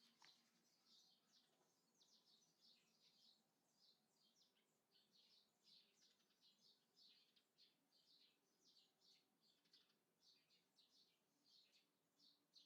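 Faint small birds chirping, with many short high chirps following one another several times a second.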